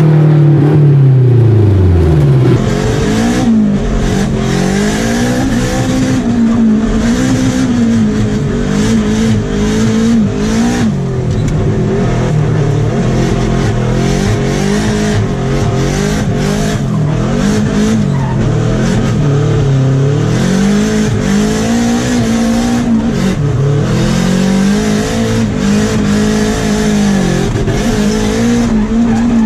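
Nissan S13's turbocharged SR20DET four-cylinder heard from inside the cabin while drifting. Revs drop sharply at the start, then swing up and down about every two seconds as the throttle is worked. Tyres squeal underneath.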